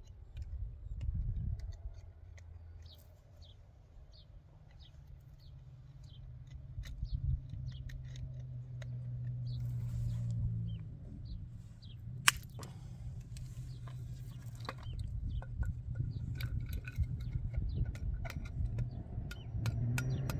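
Scattered light metallic clicks and scrapes of steel binding wire being twisted with pliers around a wooden tool handle, with one sharper click about 12 seconds in. A steady low hum sits underneath.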